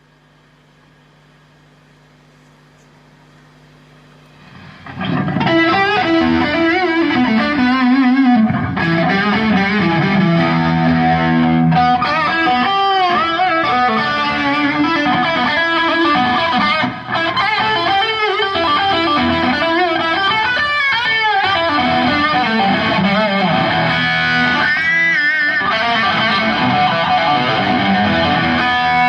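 Electric guitar through effects pedals. A held note rings faintly at first, then about five seconds in the guitar comes in loud and distorted, playing lead phrases with bent notes.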